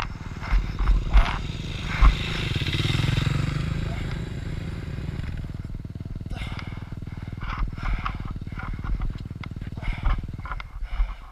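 Motocross bike engine running, swelling about two to three seconds in and then easing off, with a few sharp knocks in the first two seconds; the engine sound drops away about ten seconds in.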